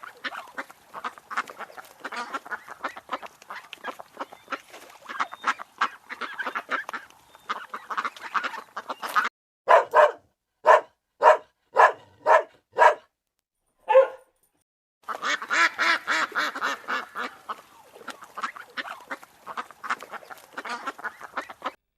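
A flock of waterfowl calling: dense overlapping honks and quacks, broken in the middle by a run of about seven loud single honks about half a second apart and one more after a short gap, then the crowded calling resumes.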